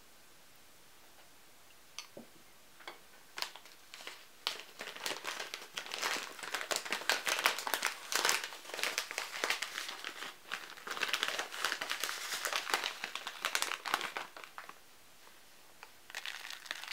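Crinkling and crackling handling noise: dense, irregular clicks for about thirteen seconds, then a shorter burst near the end.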